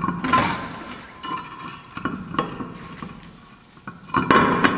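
Steel wheel clanking and scraping against the hub and wheel studs as it is lifted onto the car: several sharp metal knocks with a short ring, and louder scrapes just after the start and near the end.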